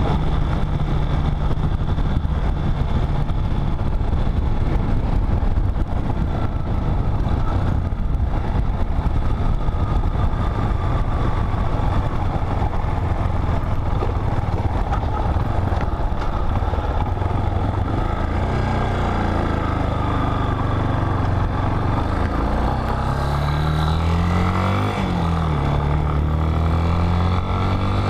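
Motorcycle engine running on a rough dirt road, with wind rush across the microphone. Later on the engine note climbs and falls several times as the throttle is opened and closed.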